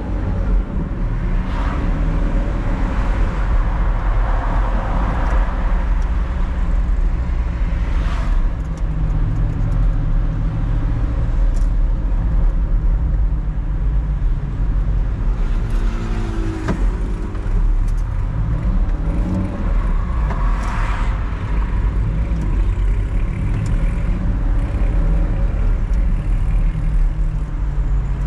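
Car's engine and road noise heard from inside the cabin while driving, a steady low rumble, with a few passing vehicles swelling up and fading away.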